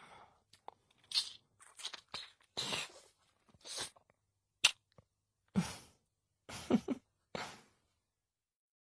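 A man's voice making short breathy vocal sounds and mouth noises in about a dozen separate bursts, with no music behind them, stopping about 8 seconds in.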